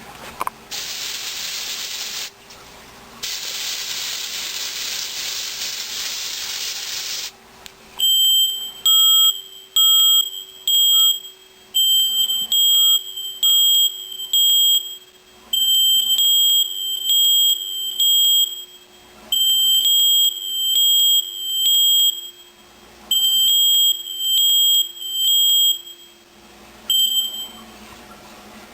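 Two long hisses of canned test smoke sprayed at a smoke alarm. About eight seconds in the alarm goes off: a shrill, loud beep repeated in groups of three with short pauses (the temporal-three evacuation pattern), meaning the detector has sensed the smoke.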